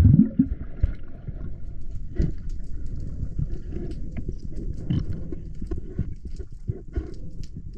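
Muffled sound of moving water around a camera in the water: a low continuous rumble and gurgle, with many scattered small clicks and knocks.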